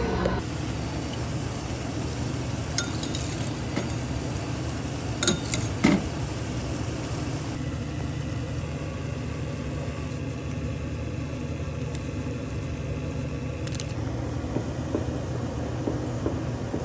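Water boiling hard in a frying pan on a stove: a steady low rumble, with a few sharp clicks in the first half.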